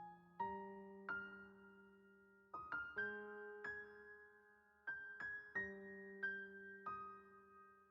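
Slow, gentle solo piano background music: single notes and soft chords struck about once a second, each left to ring and fade.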